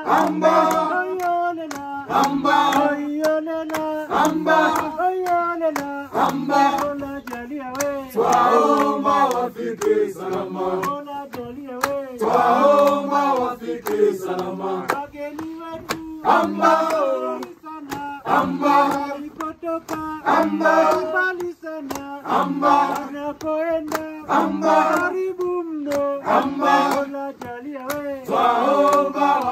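A group of men and women singing together in chorus, clapping their hands to a steady beat.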